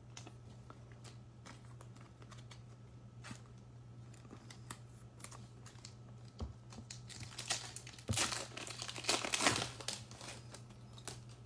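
Foil wrapper of a trading-card pack being torn open and crinkled, loudest from about seven to ten seconds in, after a few light clicks of cards being handled.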